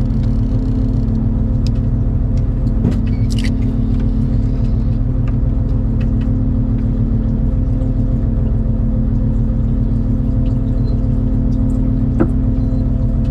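Fishing boat's engine running steadily, a low rumble with a constant hum, with a few faint knocks on board.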